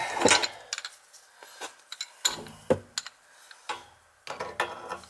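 Wrenches clinking and knocking against a brass compression ball valve and its copper pipe as the compression nuts are worked: a scattered series of sharp metallic clicks and clanks.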